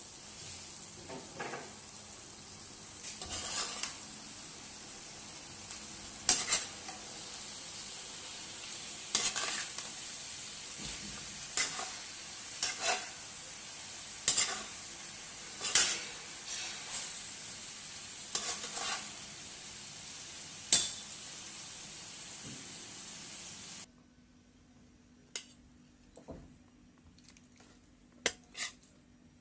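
Mutton and bitter gourd frying in a non-stick wok: a steady sizzle with a utensil scraping and clicking against the pan every second or two as it is stirred. The sizzle cuts off suddenly near the end, leaving a few light clicks.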